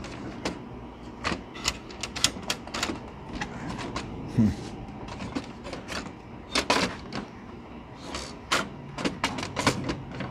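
Plastic paper tray of a Canon printer being pushed and jiggled at the printer's front slot: a string of sharp plastic clicks and knocks, with one heavier thud about four and a half seconds in. The tray is not seating and will not slide back in.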